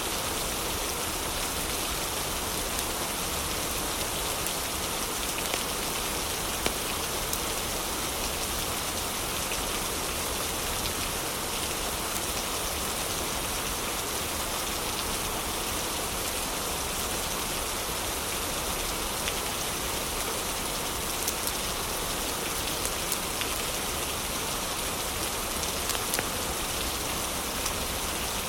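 Heavy rain falling as a steady, even hiss, with a few sharp clicks scattered through it.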